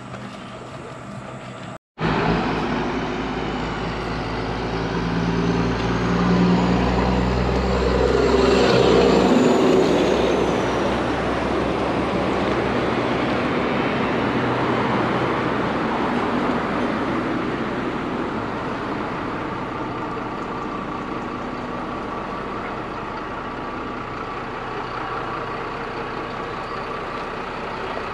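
Large off-road tour truck's engine and drivetrain running on the move, getting louder with a deep rumble a few seconds in as it pulls under load, then settling into a steady cruise. The sound cuts out briefly about two seconds in.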